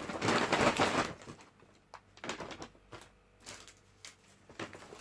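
Rustling and crinkling of clothing and packaging being handled as the next item is pulled out: a loud rustle in the first second, then several shorter rustles and clicks.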